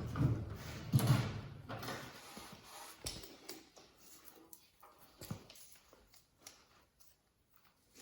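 A few scattered knocks and clunks of parts being handled during an engine teardown, the loudest about a second in, then near silence for the last couple of seconds.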